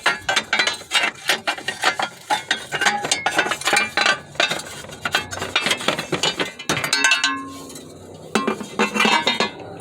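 Thin sheet-metal starter heat shield clinking and rattling in quick, irregular knocks as it is worked loose and pulled out from under the exhaust. The clatter thins out about seven seconds in, with a few more clinks near the end.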